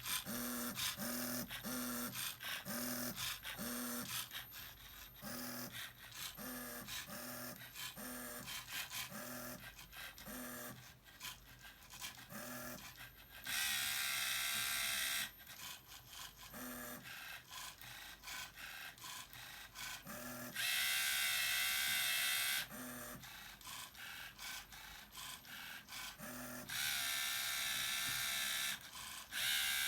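Lego Mindstorms printer machine's small electric motors running: short whirs about every half second in a steady rhythm, then three longer, louder runs of about two seconds each with pauses between.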